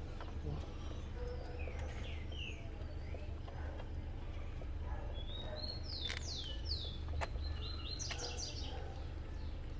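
A bird chirping in short downward-sweeping notes, with a quick run of notes near the end, over a steady low rumble. A few faint clicks come in between.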